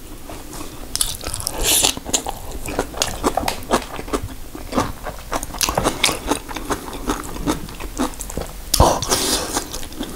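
Close-miked eating of fresh, geotjeori-style spicy cabbage kimchi: wet crunching and chewing of the leaves, mixed with chopsticks pulling and tearing kimchi on the plate, in quick irregular clicks and squelches. The loudest bursts come about two seconds in and again near the end.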